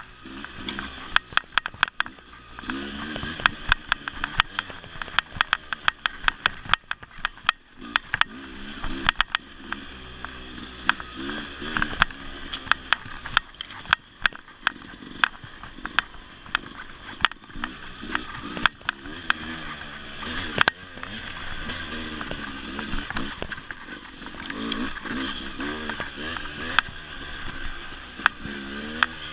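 Dirt bike engine revving up and down over and over as the throttle is worked, with many sharp knocks and clatters from riding over rough ground.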